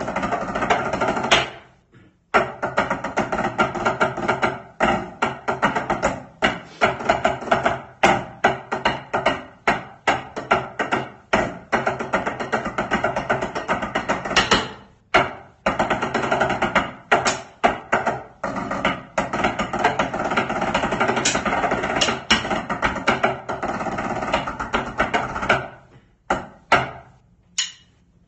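Fast drumline tenor-drum rhythms: sticks striking a set of tenor practice pads in quick runs and accents, with a percussion track sounding along. The playing breaks off briefly about two seconds in and again around fifteen seconds in, then stops near the end after a few last hits.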